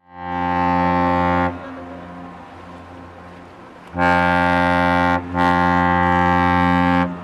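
Deep ship's horn of a Pullmantur cruise ship sounding three blasts: a short first blast, then after a pause of about two and a half seconds, two longer blasts with a brief break between them.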